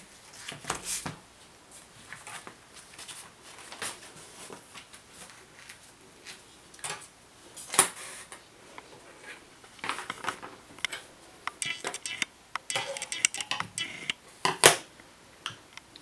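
Small stationery items, such as scissors, pens, a pencil, a plastic set square and books, being set down and arranged in a desk compartment under a clear plastic lid. The sound is a run of scattered taps, clicks and light rustling, with two sharper knocks, one about eight seconds in and one near the end.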